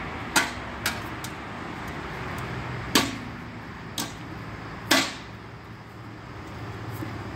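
Sharp, short clicks, five in all, several of them about a second apart, over a low steady hum.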